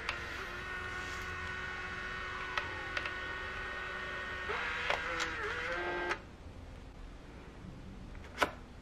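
Fujifilm Instax Mini Link photo printer feeding out an instant print: a steady motor whirr with a few clicks, stopping about six seconds in. A single click comes near the end.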